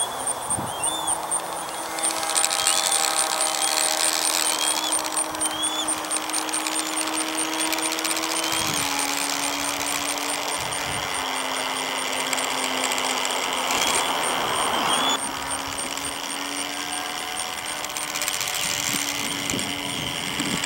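Electric motor and propeller of an E-flite P-51C radio-controlled model plane whining at a steady pitch through takeoff and climb, dropping a little in pitch about 9 seconds in and again about 11 seconds in.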